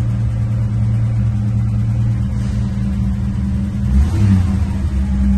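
1963 Chevrolet Nova's engine idling steadily just after a start, its oil pressure still building. About four seconds in the note briefly rises, then it settles back to a lower steady idle.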